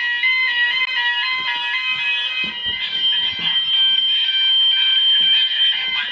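GENT Vigilon fire alarm sounders sounding together in a sound-off test, giving a loud alternating two-tone alarm that steps back and forth a few times a second. About three seconds in, more sounders join, adding a steady higher tone.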